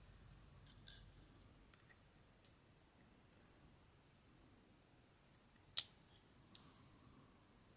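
A few small metal clicks and taps as the pins of an Ikon N1 pin-tumbler lock are taken out and handled during disassembly, the sharpest click a little before six seconds in and another just after.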